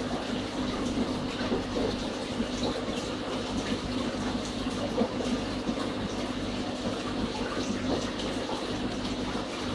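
Aquarium water pump running: steady trickling and bubbling of water over a low electric hum, with small irregular ticks.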